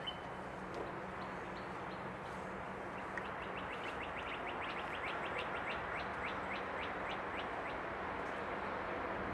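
Birds calling in a tree: a quick series of sharp, high chirps starts about three seconds in, about four a second, thinning out and slowing near the end, over steady background noise.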